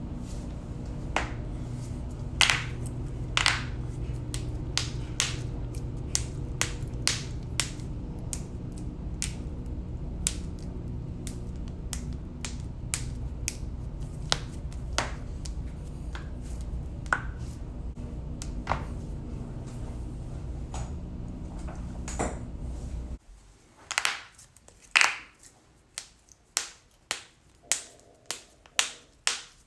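Human joints cracking: a long run of sharp, scattered pops over a steady low background hum. About three-quarters of the way through, the hum cuts out and a quick string of louder pops follows, roughly two a second.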